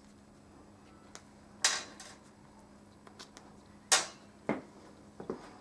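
Small metal parts, nuts and washers, set down and handled on a workbench. There are two sharp clinks with a short ring, the first about a second and a half in and the second near the middle, and a few lighter taps and ticks between them.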